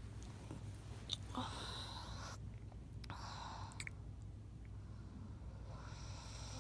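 A sleeping person breathing noisily and snoring: three rasping breaths with a few wet mouth clicks, over a low steady hum.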